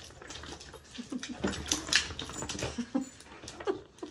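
A Newfoundland and a Cavalier King Charles spaniel tugging at a squeaky toy: irregular short dog noises and scuffling, loudest in a cluster between about one and three seconds in.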